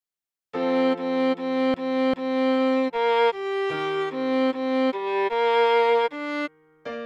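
Viola playing a melody of separate bowed notes, mostly a run of repeated notes with a quieter low note held beneath them. The playing starts about half a second in and stops after a final note near the end.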